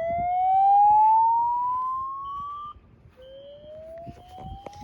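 Fire alarm speaker sounding a slow-whoop evacuation tone: a pitch sweep rising slowly from low to high over about three and a half seconds, then cutting off and starting again from the bottom. A faint, intermittent high beep sounds underneath.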